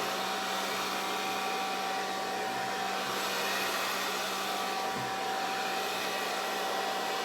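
Handheld hair dryer running steadily on its low setting: an even rush of air with a constant motor hum under it.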